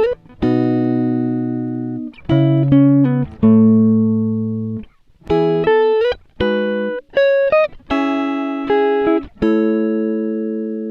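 Instrumental background music on a plucked guitar: slow chords and single notes that ring out and fade, in short phrases with brief gaps between them.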